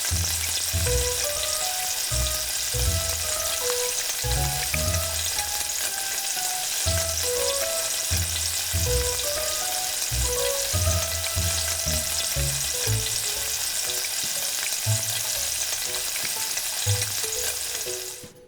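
Food frying in hot oil, a steady dense sizzle, with light background music over it. The sizzle fades away near the end.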